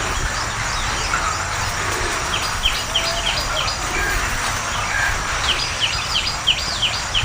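A bird calling in two quick runs of short, falling chirps, the second run longer, over a steady background hiss.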